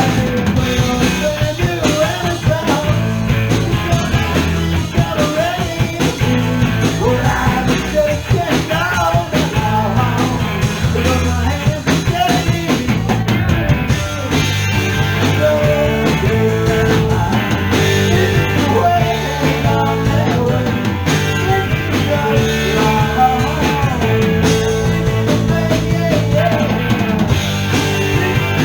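A rock trio playing with a drum kit, a steady bass line, and wavering melodic lines on top.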